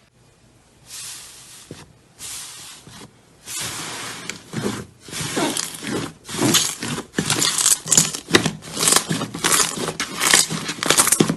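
Hands squeezing and stretching slime: two short soft squishes in the first few seconds, then a run of wet squishing and tearing sounds about two a second that grow louder.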